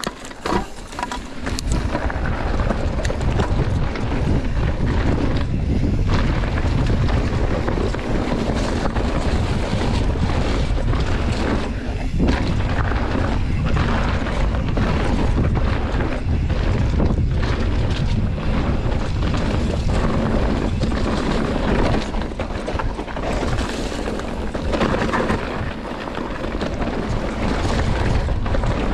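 Wind buffeting the rider's camera microphone, with tyre and frame rattle from a mountain bike descending a rough downhill trail. It is a steady, loud rush heaviest in the low end, starting about a second in.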